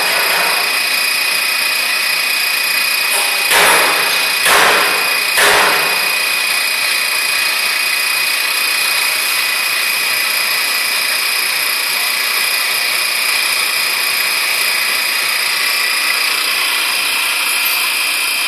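Vibrating sieve machine running: a steady mechanical hum and hiss with a constant high whine while powder is shaken across its screen. Three short, louder bursts of noise come a second or so apart, between about three and a half and five and a half seconds in.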